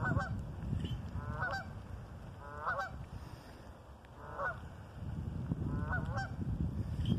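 Geese honking: five single honks spaced about every second and a half, over a low rumbling background noise.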